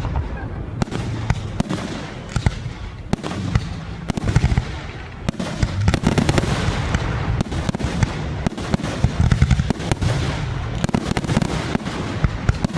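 Fireworks going off in a continuous barrage: rapid sharp cracks and pops, several a second, over a steady low rumble of booms.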